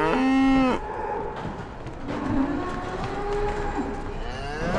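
Black-and-white dairy cows mooing. One loud moo comes at the start, softer lower moos follow in the middle, and another moo, rising then falling in pitch, begins near the end.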